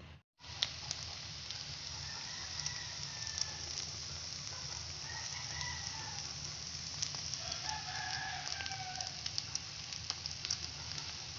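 Egg and diced potato sizzling in a frying pan, a steady hiss with scattered sharp clicks from stirring, starting just after a brief break. A few drawn-out calls sound in the background, once about two seconds in and again near the middle and around eight seconds.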